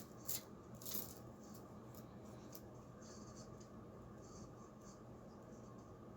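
Faint steady hum with a few small clicks, the two loudest about a third of a second and a second in.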